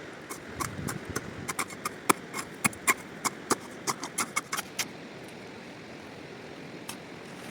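A quick, irregular run of about twenty sharp clicks and knocks of hard objects striking each other over a steady hiss, stopping about five seconds in.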